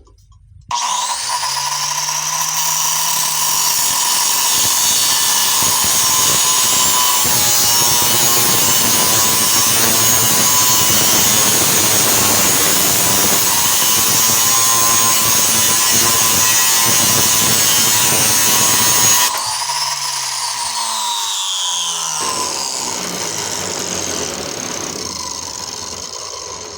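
Grinding tool with an oversized cutoff wheel cutting into a door knob (a brass shell over a steel core), starting about a second in with a steady, loud cutting noise. About two-thirds of the way through the cut stops, and the motor winds down with a falling whine.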